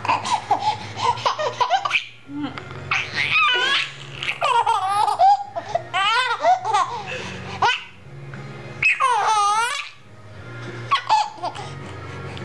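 Baby laughing in repeated bursts of giggles and belly laughs with short pauses between, including a long high-pitched laughing squeal about nine seconds in.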